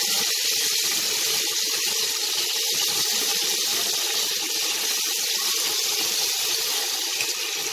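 Giant tiger prawns sizzling in a hot pan of butter, oil and garlic: a loud, steady hiss.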